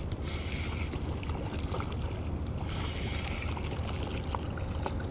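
Spinning reel being cranked while a small hooked sea bass splashes at the surface, with spells of splashing over a steady low rumble.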